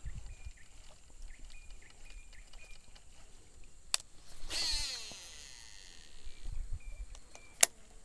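A casting reel during a cast: a click, then the spinning spool's whine falling in pitch for under a second as the line pays out, and a sharp click near the end as the reel is engaged.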